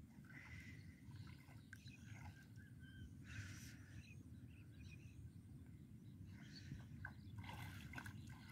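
Near silence: faint outdoor ambience with a low rumble and a few faint chirps. There are brief soft swishes of shallow water being worked with a push net and hands, about three seconds in and again near the end.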